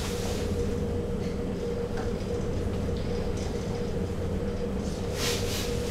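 Steady hum and rumble inside a moving Peak2Peak tri-cable gondola cabin as it runs along its cables, with a constant mid-pitched tone over a low drone. A brief hiss comes near the end.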